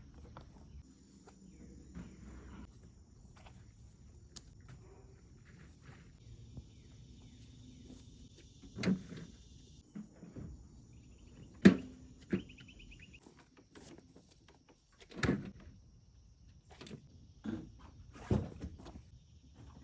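Scattered knocks and thuds, a few seconds apart, of gear being handled, set against faint steady high-pitched insect trilling.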